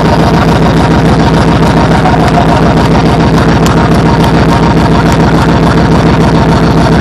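Loud dance music from the stage speakers in a section of rapid, pulsing bass that drowns out everything else and distorts on the phone's microphone into a buzzing drone; it starts suddenly.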